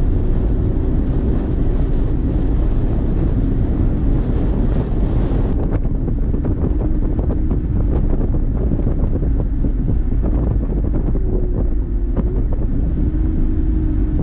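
Wind buffeting a camera microphone mounted outside a van driving along a highway, over a steady rumble of road and engine noise.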